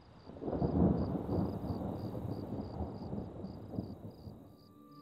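Rumble of thunder with rain, swelling about half a second in and dying away after about four seconds, over a steady pulsing cricket chirp. Soft music starts to come in near the end.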